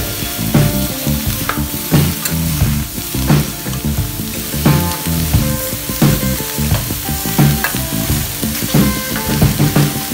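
Chicken wings and feet sizzling as they stir-fry in a steel wok. A wooden spatula and tongs scrape and knock against the pan every second or so as the pieces are turned.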